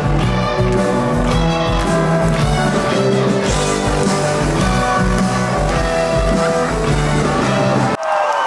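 Rock band playing live: electric guitars over bass and drums with a steady beat. The music cuts off abruptly near the end, replaced by a voice.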